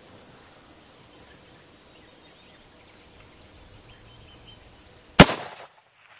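Quiet outdoor background with faint bird chirps, then about five seconds in a single rifle shot from a muzzle-braked rifle: one sharp, loud crack with a short tail that cuts off suddenly.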